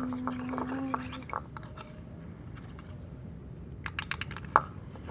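Spoon clicking and tapping against a bowl while stirring a slime activator mix of detergent water and baby powder, in scattered taps with a quick cluster of sharper clicks near the end. A person's voice holds a short hum over the first second.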